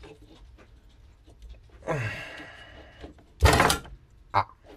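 Handling noise on a wooden workbench as an aluminium PC radiator is moved into place: a scraping slide lasting about a second, then a louder knock and rattle, and a short click near the end.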